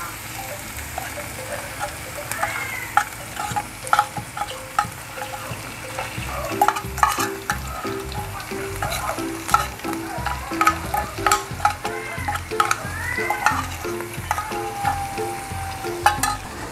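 Canned tuna flakes in oil sizzling as they are scraped out of the tin into a hot pan of sautéed onions and garlic, with frequent sharp clicks and taps of the spatula against the tin can.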